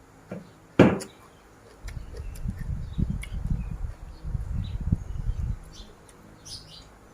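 A person chewing a mouthful of spicy seafood papaya salad close to the microphone, heard as a run of deep, uneven chewing thuds over a few seconds. A single sharp knock comes a little under a second in, before the chewing.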